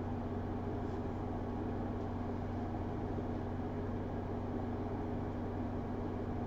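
Steady background hum and hiss, an even drone with a constant low tone and no change in level, like a fan or electrical hum picked up by the microphone.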